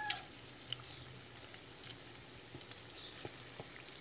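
Corn fritters deep-frying in hot oil: a steady low sizzle with scattered small pops and crackles. The tail of a rooster's crow cuts off just at the start.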